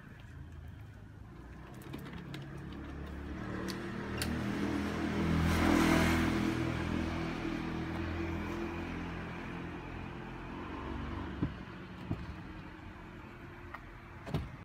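A motor vehicle's engine running close by, building to its loudest about six seconds in and then slowly fading, as of a vehicle passing or pulling away. A few light knocks near the end.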